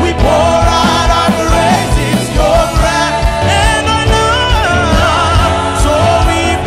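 A group of women singers of a church praise team singing a worship song together into microphones, with vibrato on the held notes, over band accompaniment with a steady low beat.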